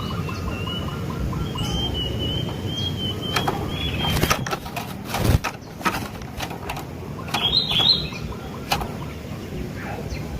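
Sooty-headed bulbul calling: a long wavering whistle-like note for about the first four seconds, then a run of sharp clicks and a short chirp about eight seconds in, over a steady low background noise.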